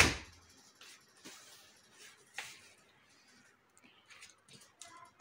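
A single sharp thump, then a few faint clicks and knocks, with handling noise from a phone camera being carried about.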